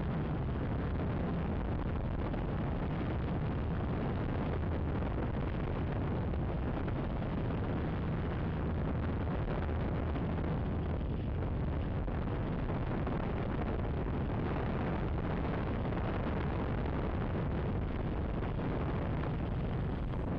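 Gaui 330X quadcopter's electric motors and propellers running steadily in flight, a dense noise with heavy wash on the microphone, cutting off suddenly at the very end as the motors stop.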